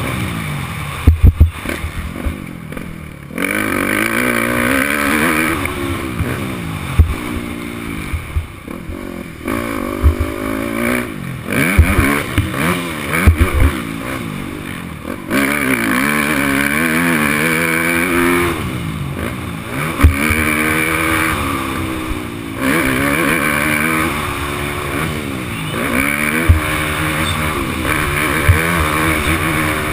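Yamaha YZ250F four-stroke single-cylinder motocross bike's engine, heard from the rider's helmet, revving hard and dropping back over and over as it accelerates, shifts and slows round the track. Sharp knocks stand out here and there, the loudest about a second in and near the middle.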